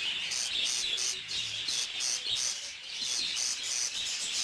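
Budgerigars chirping: a steady run of short, high chirps repeating several times a second.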